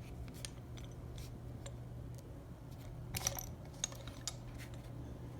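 Faint clicks and light taps of metal hose fittings being handled, with a small cluster of clinks about three seconds in, over a steady low hum.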